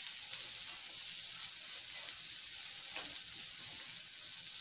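Pupusas frying on a hot comal and griddle: a steady sizzle, with a few faint clicks as the pupusas are moved and turned with a spatula.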